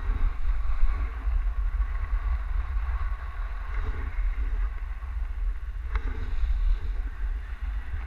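Wind buffeting an action camera's microphone as a skier glides downhill, a steady low rumble with the hiss of skis sliding over snow. A single sharp click sounds about six seconds in.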